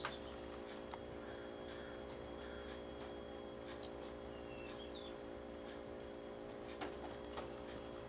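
Small songbirds giving a few short, high chip calls, with a sharp click at the start and a few softer ticks later, over a steady low hum.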